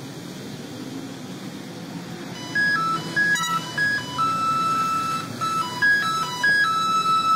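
A steady low background hiss, then about two and a half seconds in a simple electronic jingle of clean, stepping beeping notes starts and plays on.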